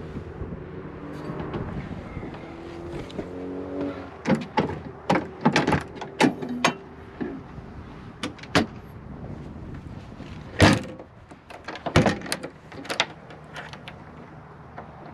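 Helicopter cowling panel and its latches being handled: a run of sharp clicks, knocks and rattles, with two loud clunks about ten and a half and twelve seconds in.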